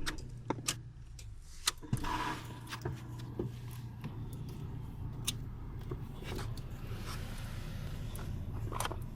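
Car engine idling steadily, with scattered small clicks and knocks of wiring and parts being handled.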